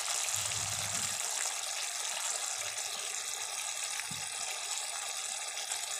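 Jackfruit curry sizzling steadily in a kadai as its gravy cooks down.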